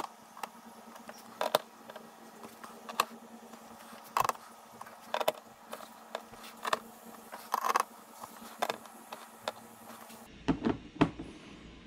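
Torque screwdriver tightening fairing bolts to about 25 to 30 inch-pounds, giving a series of sharp, irregular clicks roughly a second apart.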